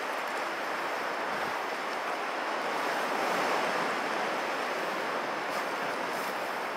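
Sea surf washing against a rocky shore, a steady rush of water that swells briefly about three seconds in.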